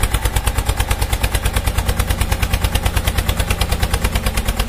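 Tractor engine running with a rapid, even chugging, about ten beats a second, over a steady low hum.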